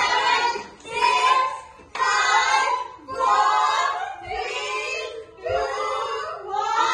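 A group of voices singing or chanting together in short phrases about a second apart.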